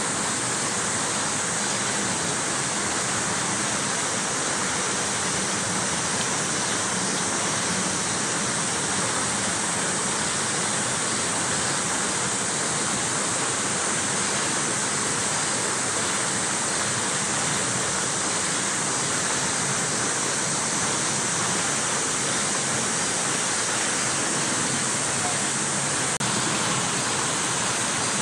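Steady, unbroken rushing noise with no distinct events, brightest in the high range, starting abruptly at the outset.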